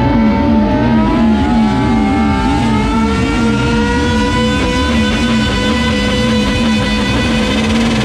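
Motorcycle engines revved and held high, their pitch climbing slowly for a couple of seconds and then holding, over a low pulsing beat of music.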